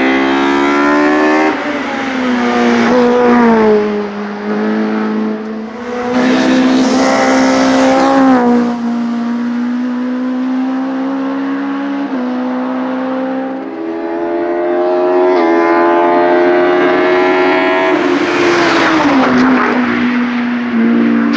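Opel Kadett C Coupé hillclimb car's 16-valve four-cylinder engine at high revs, accelerating hard past and away uphill. The pitch climbs and then drops sharply several times as the driver shifts or lifts for corners, and holds steadier in the later part.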